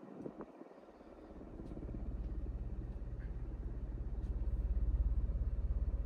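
Downdraft from a Minka Aire Spacesaver ceiling fan running on high, buffeting the microphone: a low, fast-pulsing rumble that builds from about a second in.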